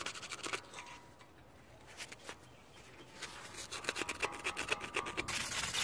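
Screwdriver tip scraping rust, sand and dirt deposits out of the pad slots of a Toyota Fortuner's front brake caliper bracket, metal on metal. Quick scraping strokes, a short pause, then a fast run of scrapes with a slight metallic ring.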